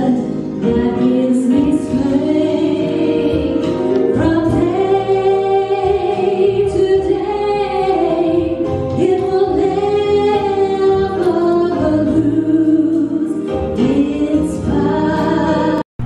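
A choir singing a hymn in long held notes. The singing cuts off abruptly just before the end.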